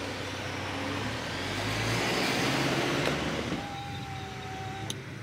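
Motor vehicle running with road noise, swelling about two seconds in. A steady high tone sounds for about a second near the end.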